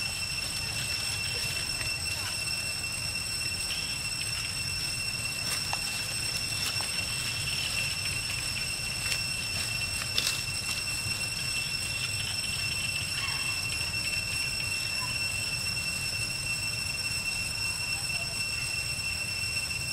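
Steady, high-pitched insect drone of several even tones held without a break over a low rumble, with a few faint clicks and one sharp tick about ten seconds in.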